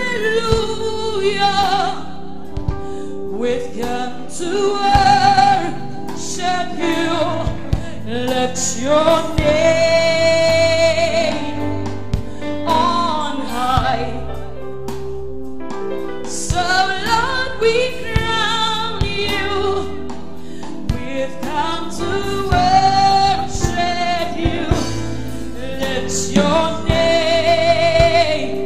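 Live gospel worship song: a woman sings with full voice, holding long notes with vibrato, over steady instrumental accompaniment.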